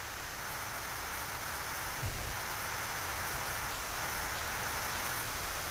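Steady background hiss of the recording microphone, with a faint low thump about two seconds in.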